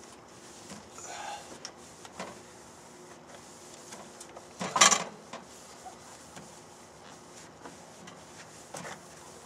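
Paper towel wiping the glass inside a microwave door: soft, scattered rubbing strokes, with one louder, brief rub about five seconds in.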